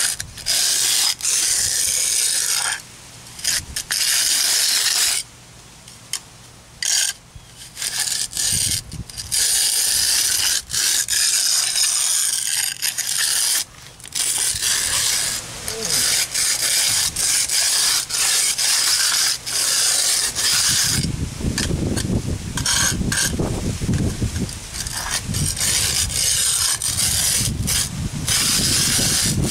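Steel hand concrete edger scraping along the edge of a fresh, stiff sand-and-cement mortar patch, in repeated strokes broken by short pauses in the first half, then more continuous.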